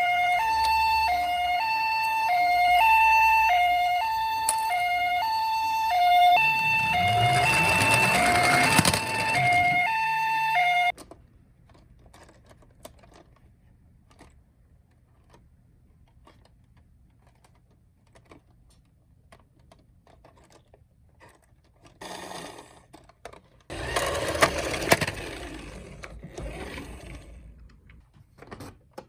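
A toy ambulance's electronic two-tone siren, alternating a high and a low tone in a steady pee-po rhythm, with the rolling rumble of the minicar's wheels running down a slope joining it for a few seconds; the siren cuts off suddenly about eleven seconds in. After a quiet stretch with faint clicks, a rolling rattle comes again for a few seconds near the end.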